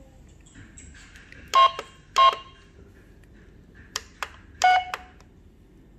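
Toy cash register's keypad beeping as its buttons are pressed: three short electronic beeps, the first two at the same pitch and the third lower, with two faint plastic key clicks just before the last beep.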